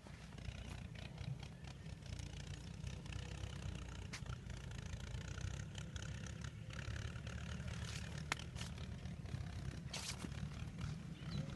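Wind buffeting the microphone in an open field, a steady low rumble, with a few sharp clicks scattered through it.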